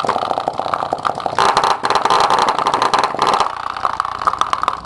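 Two Sundown E8 8-inch subwoofers driven directly from 120-volt wall current, giving a loud, harsh, crackling buzz as the cones are forced back and forth by the mains power. The buzz thins and drops lower about three and a half seconds in.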